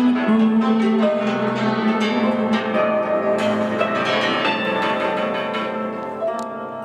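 Ensemble of tsymbaly (Ukrainian hammered dulcimers) with a double bass playing the instrumental close of a song: many quick hammer-struck ringing notes over a steady bass line, cut off abruptly at the very end.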